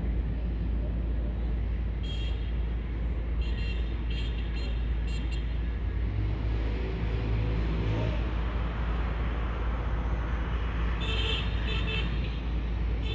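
Car driving on city streets: a steady low rumble of engine and road noise, with a few short high-pitched sounds about two seconds in and again near the end.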